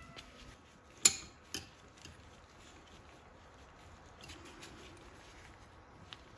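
A metal C-clamp being handled and fitted against a piston on the engine's cylinder studs: a sharp metallic clank about a second in, a lighter one half a second later, then faint handling noises.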